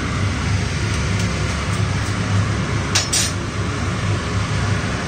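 Tamarind-rice spice mix frying in oil in a nonstick pan, a steady sizzle over a low hum, with a brief metallic clink about three seconds in.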